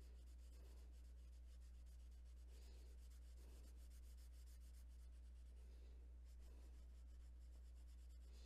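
Faint rubbing of a Sargent Art watercolor crayon on a coloring-book page, in short strokes now and then, over a steady low hum.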